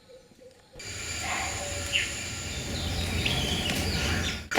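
Outdoor background noise with a steady low hum and a few short bird chirps. It sets in about a second in, after a very quiet start.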